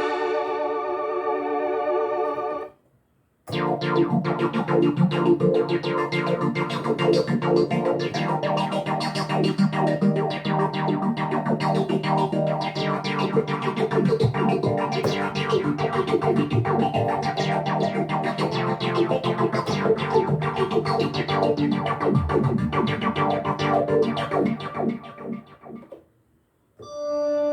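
Vintage-style keyboard presets from Arturia Analog Lab V software synthesizer: a held chord dies away, then after a short pause a busy keyboard passage with many quick note attacks plays for about twenty seconds and stops, and a new held tone begins just before the end.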